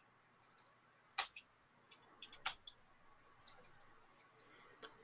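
Faint scattered clicks of a computer mouse, with two louder clicks about a second and two and a half seconds in, and a run of quicker light clicks near the end.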